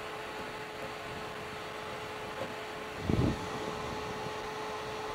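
Cooling fan of a DMX scanner light running steadily, a whooshing noise with a steady hum through it. A short low thump comes about three seconds in.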